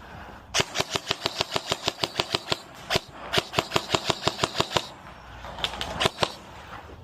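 Airsoft submachine gun firing rapid bursts of sharp shots, about ten a second: a long burst, a single shot, another long burst, then a few scattered shots near the end.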